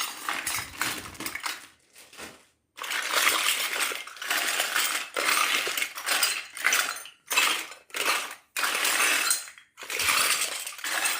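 Miniature toy kitchen pieces being handled, clinking and rattling in a series of short bursts with brief pauses between them.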